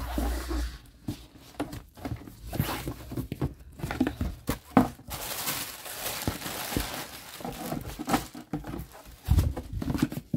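Tissue paper and plastic wrapping rustling and crinkling as a cardboard gift box is opened and searched by hand, with a few soft knocks from handling the box.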